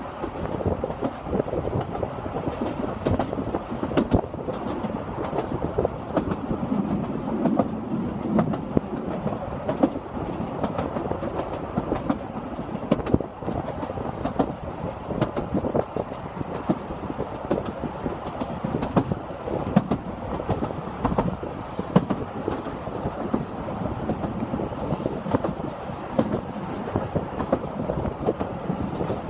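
Narrow-gauge steam railway carriage running along the track, heard at the open window: a steady rumble with frequent clicks and knocks of the wheels over the rail joints.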